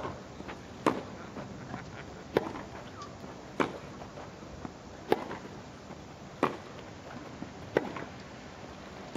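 Tennis ball struck back and forth with racquets in a baseline rally on a grass court: a sharp pop roughly every second and a half, with fainter small ticks between.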